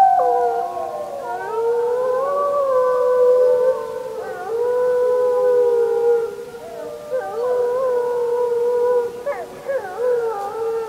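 Wolves howling in chorus: several long howls at different pitches overlap and slide up and down, breaking into shorter, wavering calls in the last few seconds.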